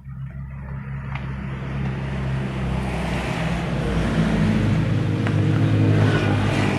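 An engine running and growing steadily louder, as a motor vehicle comes closer, with a noisy hiss over it.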